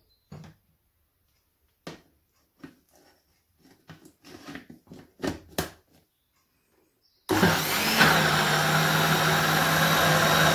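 A few light plastic clicks and knocks as the blender jug is handled on its base, then about seven seconds in an electric countertop blender starts suddenly and runs loud and steady, blending a thick batch of chickpea hummus.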